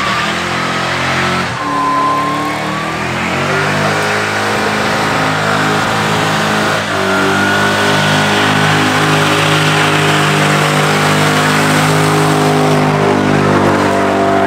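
Muscle car doing a burnout: the engine is held at high revs, its note shifting a couple of times, over a wavering tyre squeal and dense hiss.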